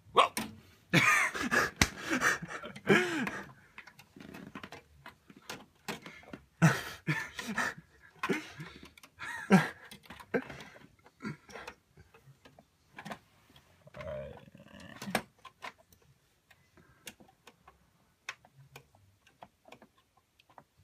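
A graphics card being worked into the slot of an open PC case: scattered clicks, taps and knocks of the card against the case and connectors. Wordless straining vocal sounds come in the first few seconds.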